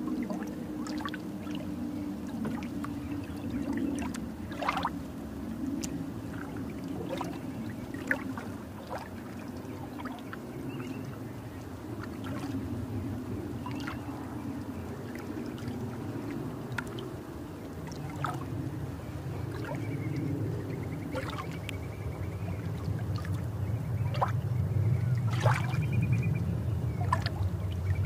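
Underwater ambience: a low bubbling, gurgling rumble of water with scattered sharp clicks, growing a little louder near the end.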